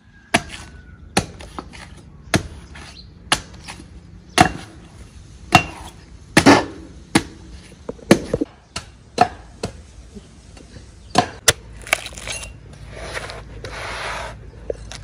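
Machete chopping the husk of a young green coconut on a wooden block: repeated sharp strikes about one a second, with a couple of seconds of rasping near the end.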